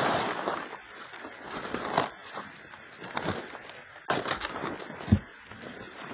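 Footsteps of boots on a dirt trail covered with dry leaves: a crunch and rustle with each step, about one a second, with a heavier thud about five seconds in.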